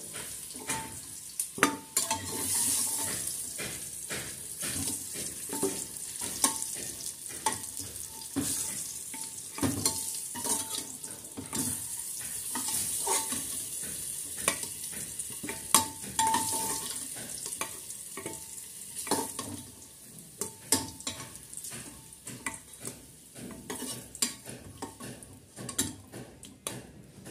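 Potato pieces sizzling in hot oil in a pressure cooker, with a steel spatula scraping and clinking against the pot and a steel plate as the lightly fried pieces are lifted out; many of the clinks ring briefly.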